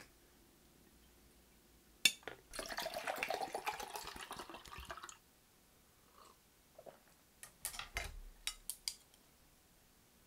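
A sharp click, then about two and a half seconds of water running or pouring and splashing, followed by several light clicks and clinks of dishes.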